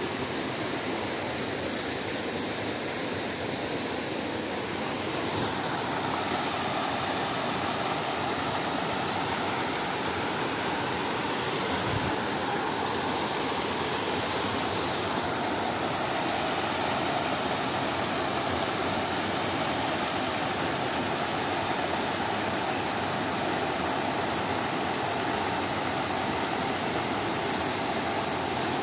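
Steady rush of a rocky mountain stream cascading between boulders, an even noise with no breaks.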